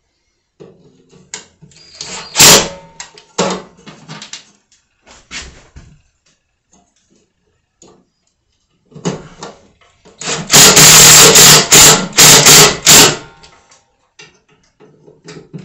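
Cordless drill run in a string of short, loud bursts from about ten and a half to thirteen seconds, driving in the screws that fix a metal switch box to the grain mill's stand. Before that, scattered clicks and knocks from handling the drill and box, with one sharp click about two and a half seconds in.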